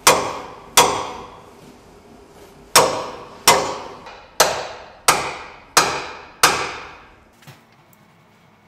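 Eight hammer blows on steel at a steering hydraulic cylinder's mount on a wheel loader, each with a short metallic ring. The last six come in a steady rhythm, about one every 0.7 seconds.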